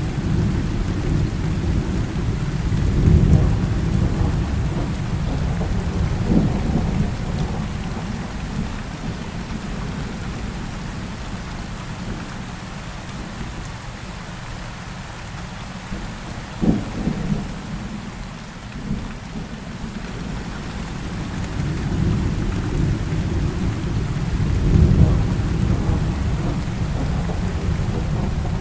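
Heavy rain falling steadily with rolling thunder. Deep rumbles swell early on and again near the end, with a short sharp crack about two-thirds of the way through.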